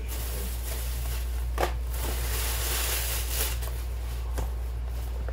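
Plastic shopping bag rustling as groceries are taken out of it, with a couple of light knocks, over a steady low hum.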